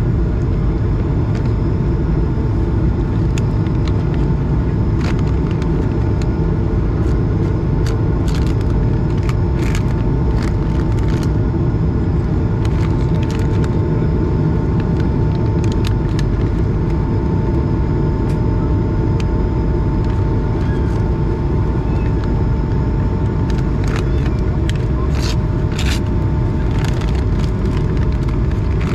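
Airbus A220 cabin noise in flight: the steady drone of its Pratt & Whitney PW1500G geared turbofan engines and rushing air, heard inside the cabin, with a steady mid-pitched whine over it. Scattered sharp clicks come through in two clusters.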